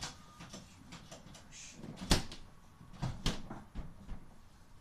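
Whirlpool refrigerator doors being pushed shut: a sharp thud about two seconds in and another about a second later, with a few lighter knocks around them.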